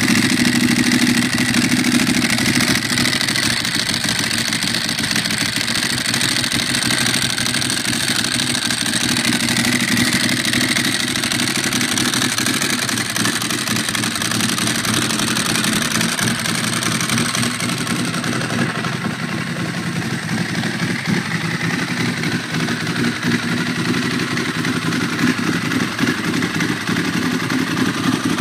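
Ducati Monster S4RS's 998 cc Testastretta L-twin engine running steadily at idle.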